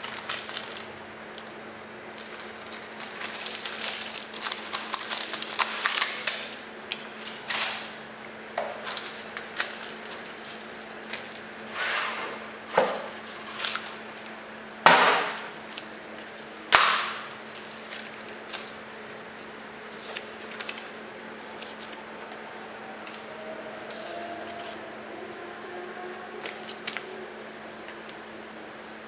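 Motherboard packaging and accessories being handled: irregular rustling and clicking, with three louder knocks about halfway through, over a steady low hum.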